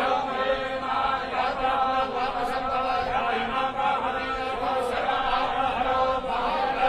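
Hindu priests chanting Sanskrit puja mantras in a steady, unbroken recitation, with more than one voice overlapping.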